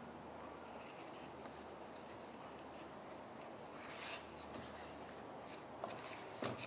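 Faint scratching and rubbing of a needle and yarn against paper as yarn ends are tucked under the stitches, with a soft rustle about four seconds in and a few light clicks near the end.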